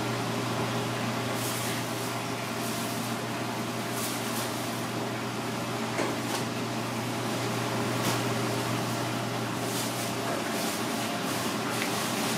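Steady low machine hum with a hiss, like a ventilation fan or cooling unit. A few faint, brief scrapes come through as a knife slides along the fish's skin on a plastic cutting board.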